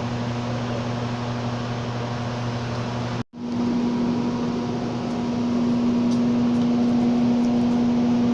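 Steady rushing noise of a waterfall with a steady low electrical-sounding hum under it. The sound cuts out for a moment about a third of the way in, then the rush resumes with the hum at a higher pitch.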